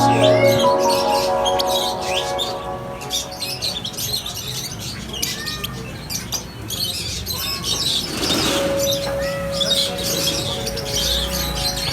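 Caged chukar partridges giving short, repeated chirps and calls mixed with sharp clicks. Background music fades out in the first second or two.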